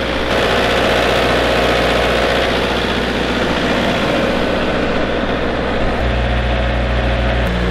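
Engine of an engine-driven welding generator running steadily. About six seconds in its low hum grows louder and shifts.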